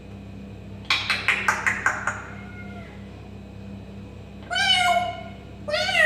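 Parrot mimicking a cat: two meow-like calls near the end, each rising then falling in pitch. About a second in comes a quick run of roughly eight short clipped sounds.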